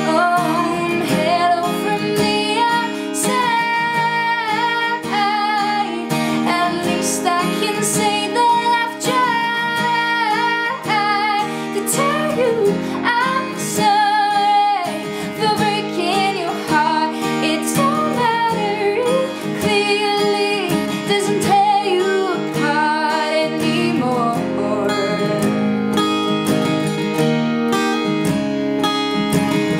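A woman singing with a strummed acoustic guitar. About three-quarters of the way through, the voice stops and the guitar carries on alone.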